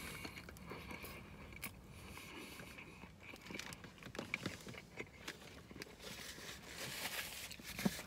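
Faint chewing of a mouthful of biscuit sandwich, with small irregular clicks and a little crinkling of its paper wrapper.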